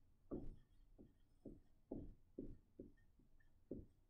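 Dry-erase marker writing on a whiteboard: a run of about nine faint, short strokes and taps, roughly two a second, as the letters are drawn.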